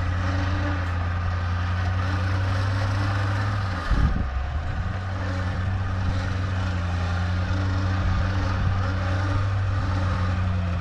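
Off-road SUV's engine running at a steady, held speed under load as the vehicle strains to get out of deep, hard-packed snow without making headway. There is a brief thump about four seconds in.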